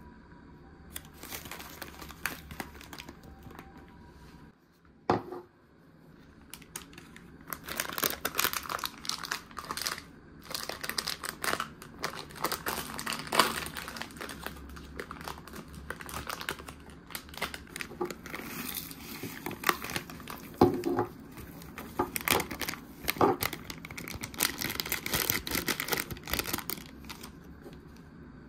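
Plastic sachet of instant miso soup mix being crinkled and torn open, its powdered miso and dried spinach tipped into a bowl; the rustling is dense, with many sharp crackly spikes. A single sharp knock about five seconds in.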